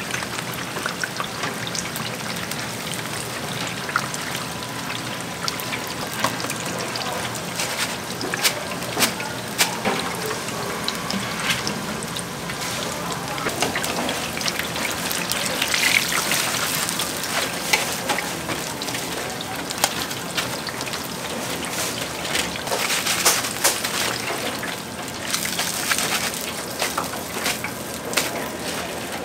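Food deep-frying in hot oil: a steady sizzle with frequent sharp crackles.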